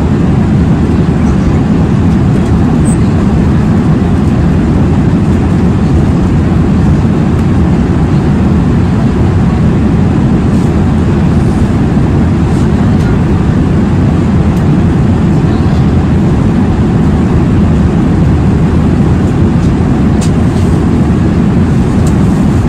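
Jet airliner cabin noise: a steady, even rumble of engines and airflow that holds level throughout, with a few faint ticks.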